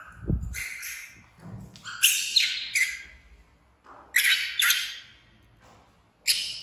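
Baby macaque screaming: about seven short, shrill calls, bunched in threes and twos, the distress calls of an infant left behind and wanting to follow. A low thump sounds just after the start.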